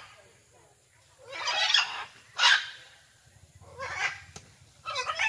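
Macaws squawking: about four harsh, raspy screeches. The first is the longest, a shorter one follows half a second later, then a fainter one, and a last one starts near the end.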